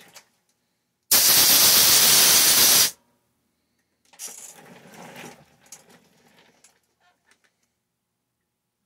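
A loud, steady pressurized hiss lasting about two seconds that cuts off suddenly, followed by quieter rustling and small clicks of parts being handled.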